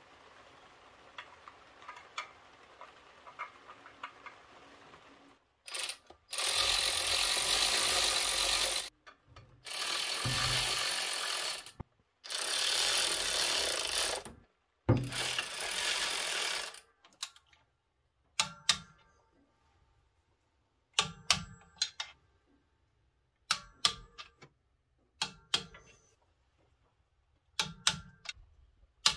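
Cordless electric ratchet driving the clutch pressure plate bolts into the flywheel, running in four bursts of two to three seconds each. After that, a hand socket ratchet clicks in short quick groups as the bolts are snugged down. Before the bursts there are a few seconds of faint light clicks.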